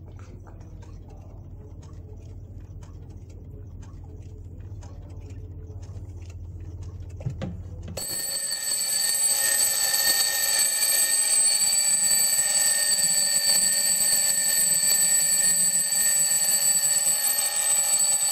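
Faint ticking of clocks, then about eight seconds in a twin-bell alarm clock starts ringing loudly and rings on without a break, its hammer rattling against the bells.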